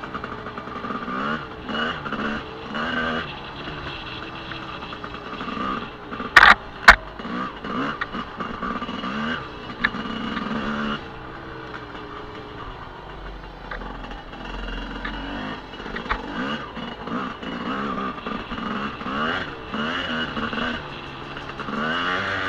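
Enduro motorcycle engine heard from the rider's own bike, revving up and down again and again as the throttle is worked over the trail. Two loud sharp knocks land close together about six and a half seconds in.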